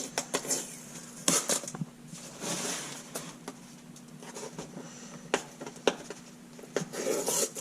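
Packaging of a new LED light bar box being opened and handled: bursts of rustling and scraping with scattered light knocks and clicks.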